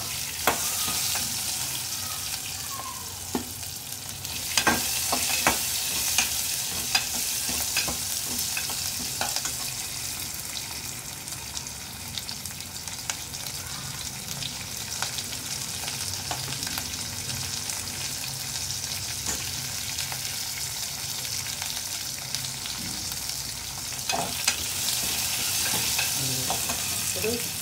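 Onion pieces and garlic sizzling in a ghee-and-oil tempering of mustard seeds, cumin and red chillies in a small aluminium pressure cooker, with a steel ladle stirring and clicking against the pot, in clusters of clicks about five seconds in and again near the end.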